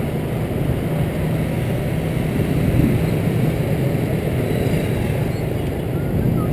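Motor scooters running in the surrounding street traffic: a steady engine hum with road noise.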